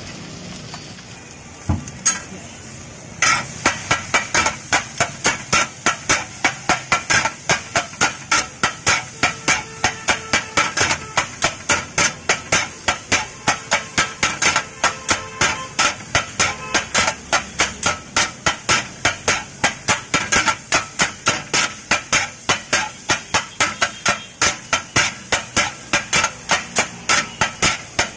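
Two metal spatulas striking a flat iron griddle as the vermicelli and fish are chopped and mixed, kothu-style: a fast, even clatter of metal on metal, about three strikes a second. It starts about three seconds in, after a couple of single knocks.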